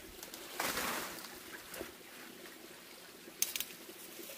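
Small mountain stream trickling over rocks, with a splash of water about half a second in as cabbage is rinsed in a plastic basket in the stream. A brief sharp rustle comes a little past three seconds.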